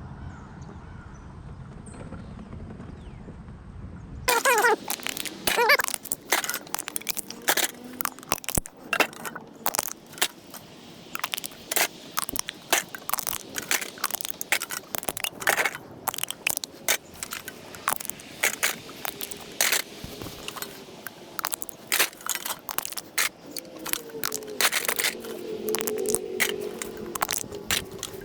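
Low rumble of a vehicle on the move that cuts off abruptly about four seconds in, followed by a long run of quick metallic clicks, clatters and crunches as small scrap metal is handled.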